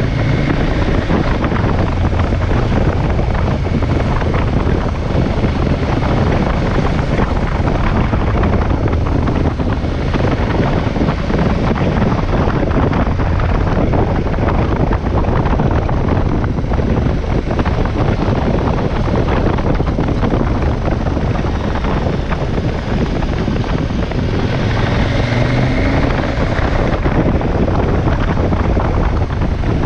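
KTM 1190 Adventure's V-twin engine running under way, mixed with steady wind rush over the microphone. The engine note picks up and rises briefly near the end.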